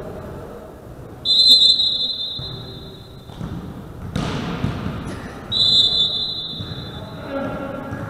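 Two long blasts of a referee's whistle, the first starting about a second in and the second about five and a half seconds in, each holding one steady high pitch. Between them, about four seconds in, comes a short burst of noise, with ball and court sounds in the hall around them.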